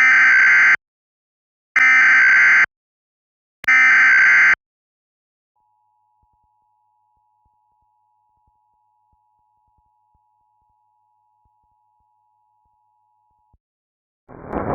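Emergency Alert System header: three short bursts of warbling digital data tones, about a second apart, followed by the two-tone EAS attention signal held steady and faint for about eight seconds. A loud hiss starts just before the end.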